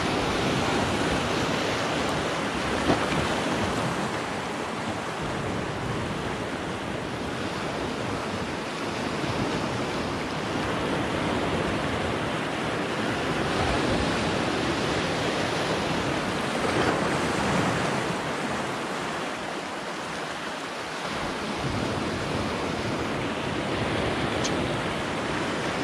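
Small ocean waves washing and breaking over a lava-rock shoreline, the surf swelling and ebbing in slow surges. A couple of brief faint clicks stand out, about three seconds in and near the end.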